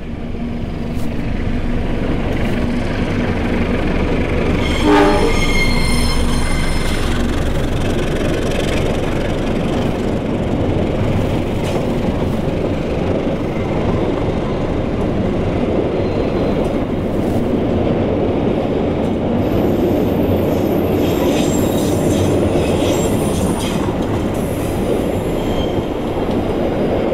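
Diesel-hauled passenger train passing over a steel girder rail bridge. The locomotive's engine drones at first, then its horn sounds for a few seconds starting about five seconds in. After that come the steady rumble and clatter of the coaches' wheels on the bridge rails, with high wheel squeals around twenty seconds in.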